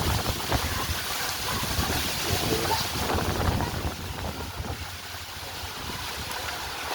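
Strong wind blowing and buffeting the microphone: a steady rush with irregular low rumbling gusts, easing slightly about four seconds in.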